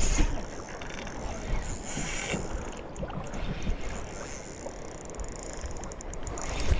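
Spinning reel being wound in under the load of a hooked salmon, with wind buffeting the microphone and low gusts near the start and end.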